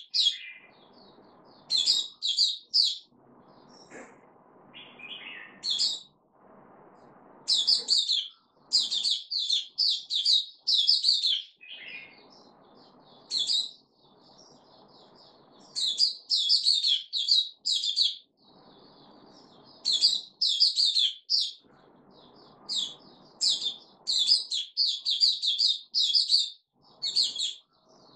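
Caged bulbul singing: quick runs of loud, clear whistled notes, several a second, in short phrases with pauses between them.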